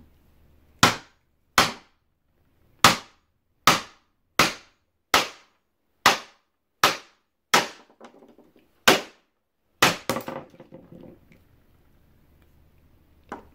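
Small wooden-handled hammer striking a geode on a plastic cutting board: about eleven sharp blows, roughly one a second, followed by a short clatter. The geode does not crack open.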